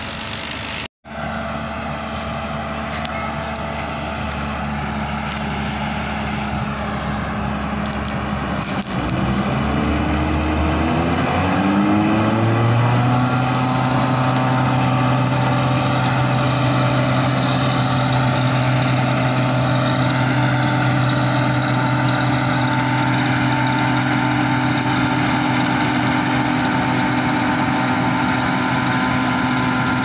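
Combine harvester's diesel engine running steadily, then revving up about nine seconds in and holding the higher engine speed.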